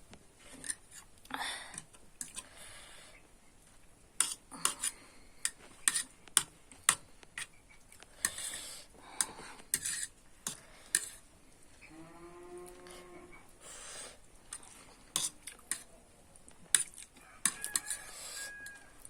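Metal utensil clinking and scraping against a plate or bowl while noodles and boiled eggs are eaten, in many sharp, irregular clicks with soft eating noises between them.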